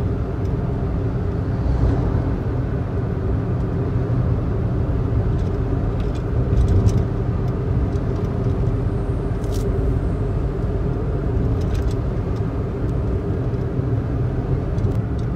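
Steady road and engine drone heard inside a moving car's cabin, with a few faint clicks.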